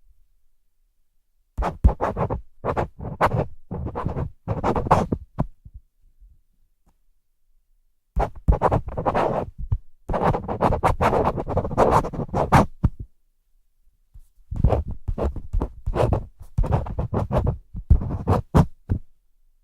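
A pen writing on paper: three spells of quick scratchy strokes, each a few seconds long, with short silent pauses between them.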